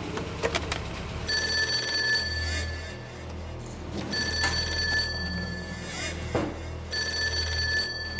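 Old-fashioned desk telephone ringing three times, each ring about a second and a half long, over low background music.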